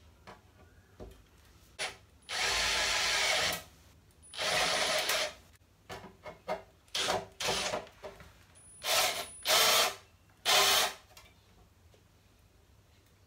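Cordless drill driving a hole saw into a stainless steel sink deck, run in short bursts of about a second each with pauses between, several quick blips in the middle and a last burst about three-quarters of the way through.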